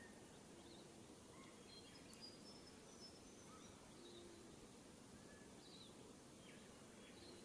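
Faint bush ambience: a steady low hiss with scattered short, faint bird chirps and whistles from more than one bird.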